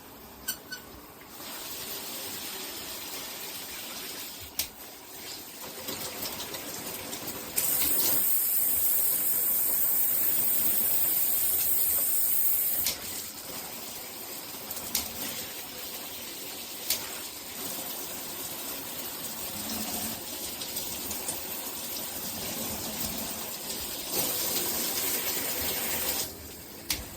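Water spraying from a handheld shower head as a steady hiss. It grows much louder for about five seconds a third of the way in, then drops back, and swells again briefly near the end.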